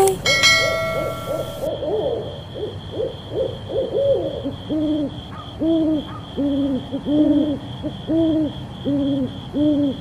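Owl hooting: a run of short arched hoots, irregular at first and then about one every 0.6 seconds, over a steady, fast-pulsing high chirping. A short ringing chime fades out at the very start.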